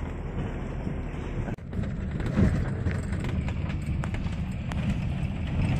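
Land Rover driving slowly on a rough plantation track: a steady low engine drone with many small knocks and rattles from the body and loose parts. There is a brief break in the sound about one and a half seconds in.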